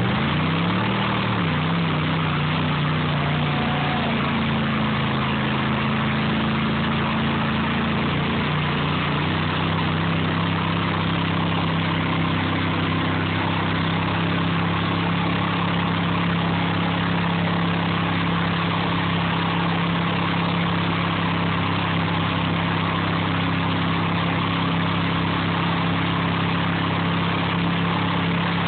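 High-horsepower Chevrolet K5 Blazer's engine running steadily while the truck sits bogged down in deep mud, with a brief rev and drop about a second in.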